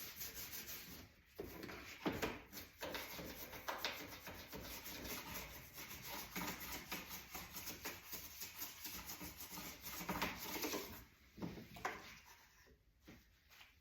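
Fast, steady scrubbing strokes on the inside of a dishwasher, dying down about eleven seconds in.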